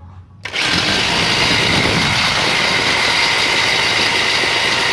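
Reciprocating saw starting about half a second in and then running steadily at full speed, its blade at the exhaust pipe.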